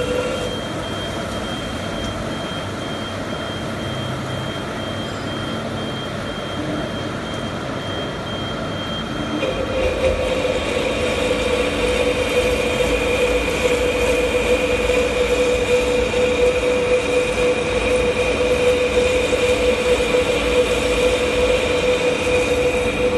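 CNC lathe turning a steel reducer gear, running with a steady machine hum and held whining tones. About nine and a half seconds in the sound shifts and grows louder, with a new higher whine.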